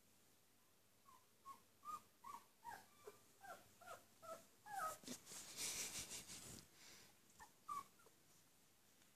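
Two-week-old puppy whimpering: a run of short, high squeaks, two or three a second, broken about halfway by a burst of rustling. Two or three more squeaks follow near the end.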